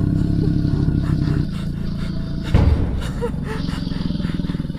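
Dense low rumbling roar with a fast, fluttering pulse and a heavy thud about two and a half seconds in, from a recording passed around as the 'sound of hell'.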